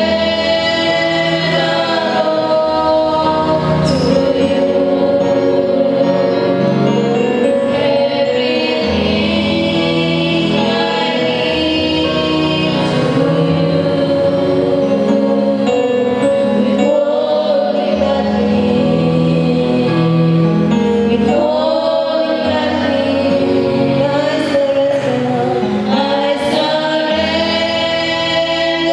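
A choir singing a slow gospel worship song in held notes, over a bass accompaniment that changes note every few seconds.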